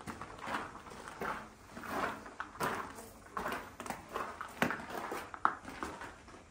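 Footsteps crunching on a gravel floor at a walking pace, roughly one step every 0.7 seconds, with a few sharper clicks among them.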